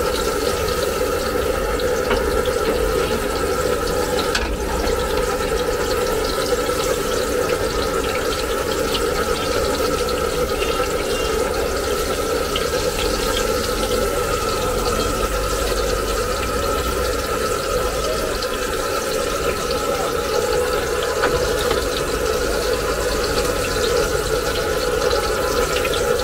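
Hot oil sizzling and bubbling steadily in a large iron karahi as garlic deep-fries. A metal spatula stirring through it adds small scattered clicks.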